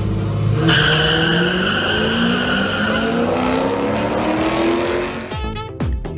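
Two cars launching side by side down a drag strip, their engines running hard and climbing steadily in pitch through the run, with a high whine over the first couple of seconds. Music with deep, falling bass drops takes over near the end.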